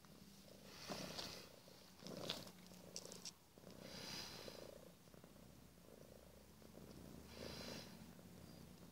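Domestic cat purring close to the microphone, rising and falling with each breath, with a few soft rustles in between.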